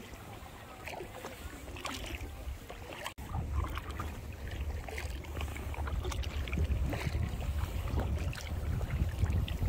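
Kayak paddle strokes dipping and splashing in lake water. Wind rumbles on the microphone, heavier from about three seconds in.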